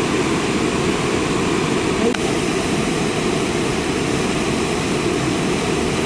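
Waterfall water rushing steadily, a deep, even noise with no break.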